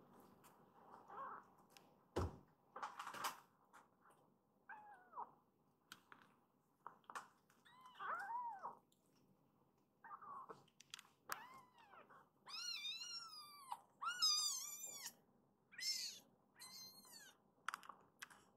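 Kittens mewing: a string of short, high, arched mews that come thicker and more wavering in the second half. A soft thump and a few light clicks near the start.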